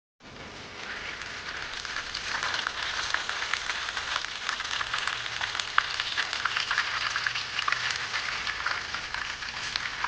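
Chicken deep-frying in hot oil: a steady sizzle with many small pops and crackles, building up over the first couple of seconds.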